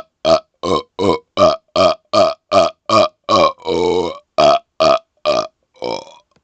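A man burping rapid-fire, close to a laptop microphone: short, loud burps about three a second, with one longer, drawn-out burp near the middle and a weaker last burp near the end.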